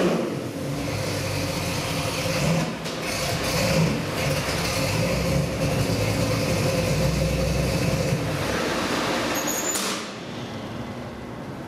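Ford 351 Windsor V8 crate engine on an engine dyno, its revs falling away at the end of a full-throttle pull and then idling steadily. The sound drops to a lower level about ten seconds in.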